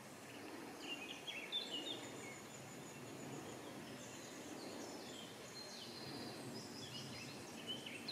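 Small songbirds chirping in short, quick phrases, over a steady low background noise.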